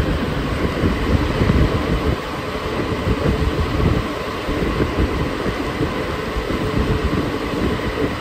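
Alstom NS-93 rubber-tyred metro train running through a tunnel, heard from inside the car: a steady rumble with a faint steady whine over it.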